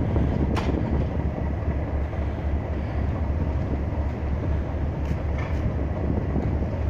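Class 37 diesel locomotive's engine running at a steady low rumble while the locomotive stands in the platform. A few short sharp knocks come through, one about half a second in and more around five seconds.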